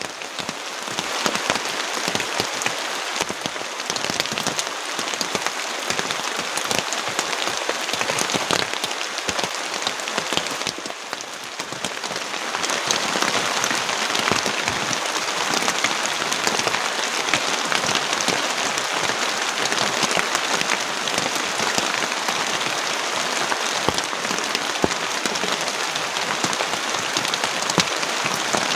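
Heavy rain falling steadily, a dense hiss of countless drops. It eases briefly about eleven seconds in, then comes back as strong as before.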